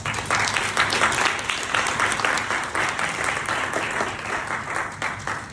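Audience applauding: many hands clapping in a dense patter that dies away near the end.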